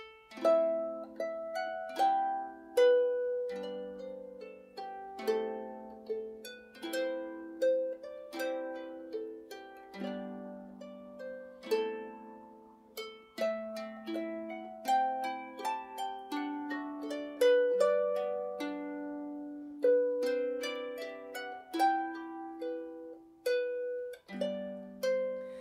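Celtic harp playing a slow instrumental piece: plucked melody notes over lower chords, each note ringing out and fading.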